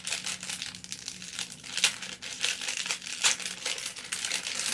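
A small packet's wrapping crinkling and crackling as it is handled and opened, with a couple of sharper crackles partway through.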